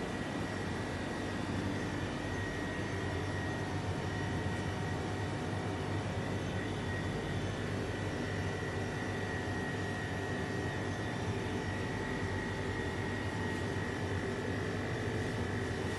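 Steady whirring drone of a running machine, with a thin high whine over a low hum.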